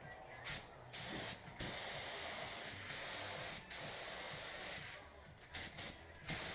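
Compressed-air paint spray gun hissing as it sprays. The trigger is let off several times, leaving short breaks in the hiss.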